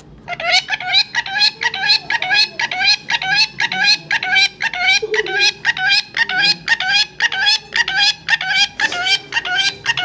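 Rose-ringed parakeet calling in a rapid, unbroken series of short, rising calls, about three a second.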